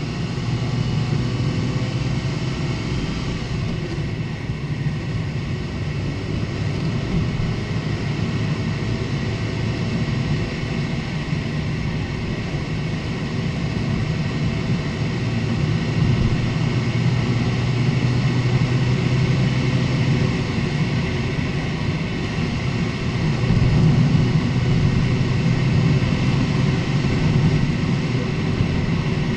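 Lexus IS250 driving, with steady tyre and engine rumble that swells a little twice.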